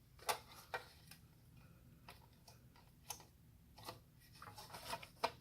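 Irregular light clicks and taps of a screwdriver against the casing of a small electronic unit as it is taken apart for scrap, with a quick run of clicks near the end.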